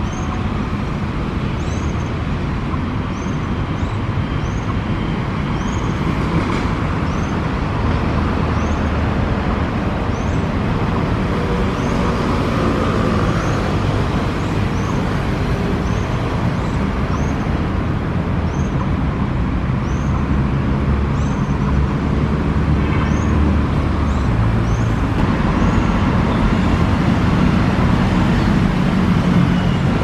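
Steady city traffic rumble, with a short high chirp repeating about once a second over it.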